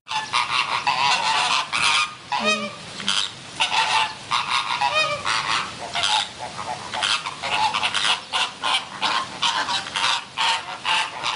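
A flock of flamingos honking: many short, goose-like calls overlap in quick succession. Two longer wavering calls come about two and a half and five seconds in.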